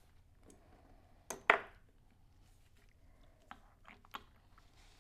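Small metal hand tools clicking and tapping against the metal parts of an Edison Diamond B phonograph reproducer while they are being set in place. A sharp double click, the loudest sound, comes about a second and a half in, then a few light ticks.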